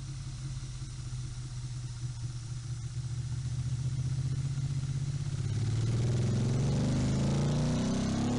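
Motorcycle engine running with a low, pulsing note, then revving up from about five and a half seconds in, rising in pitch and getting louder.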